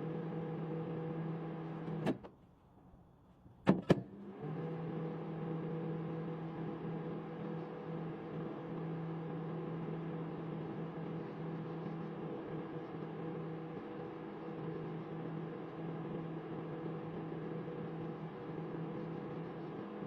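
Microwave oven running with a steady hum. About two seconds in it stops with a click; after a short quiet there are two sharp clicks and the hum starts again and runs on.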